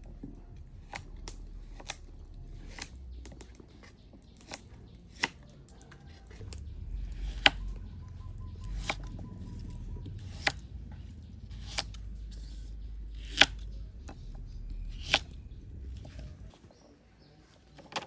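A run of sharp, irregular knocks and clicks, roughly one every second or two, with a few much louder than the rest, over a low steady rumble that fades out near the end.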